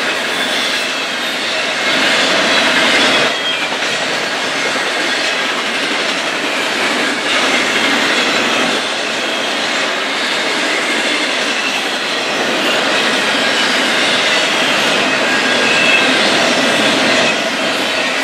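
Double-stack container train rolling past: a loud, steady rumble of steel wheels on rail, with faint high wheel squeal and occasional clicks over the rail joints.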